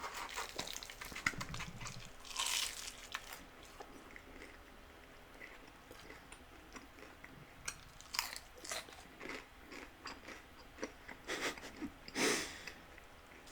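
Close-up eating sounds: bites into crispy fried chicken flautas with a crunching of the fried tortilla shell, then chewing, with louder crunches about two and a half seconds in, around eight seconds and near the end.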